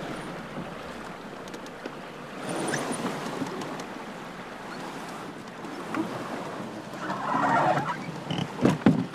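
A loaded canoe being handled at a beaver dam of piled sticks: a steady rush of noise with two louder stretches, about two and a half and seven seconds in, and a few sharp knocks near the end.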